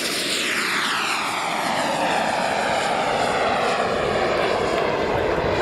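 Small gas-turbine engine of a 1/5-scale F-16 Viper model jet at full power as it takes off and climbs away, a steady jet rush whose pitch falls over the first few seconds as it passes, then holds level.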